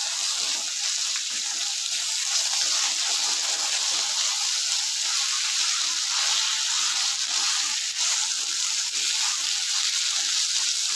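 Chopped onion and ginger-garlic paste frying in hot oil in a kadhai, a steady sizzle, with a wooden spatula stirring and scraping through it.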